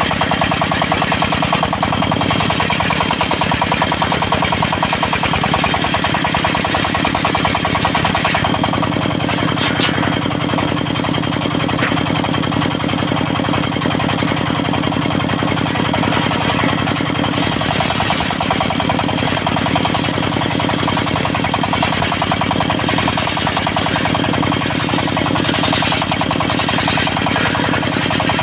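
Diesel engine of a portable circular sawmill running steadily with a rapid knocking beat. Its tone deepens about eight seconds in and brightens again a little past halfway.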